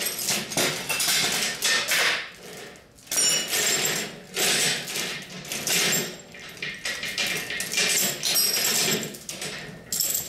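Irregular metallic clanking and jangling, several bursts a second apart, with short ringing clinks: loose metal parts or tools being handled and knocked together.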